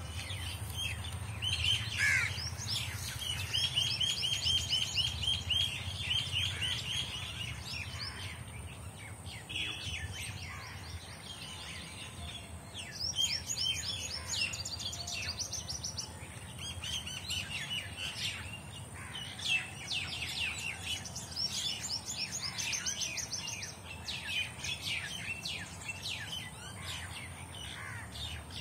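Small songbirds chirping and twittering in quick runs of high, rapid notes, several runs a few seconds long, over a steady low rumble.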